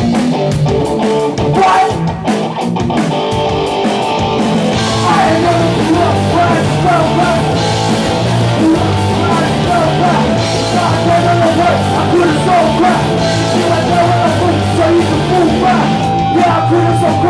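Live rock band playing loud, with distorted electric guitars, bass and drums.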